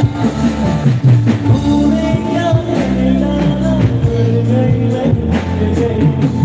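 Live pop music played loud through stage loudspeakers, with a male vocalist singing over the band's held notes and a steady drumbeat.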